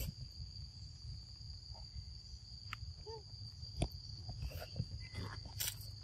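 Insects buzzing in a steady high drone, with a few sharp clicks and a brief faint call about three seconds in.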